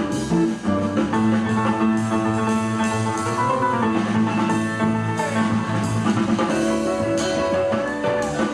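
Background instrumental music with guitar and drums.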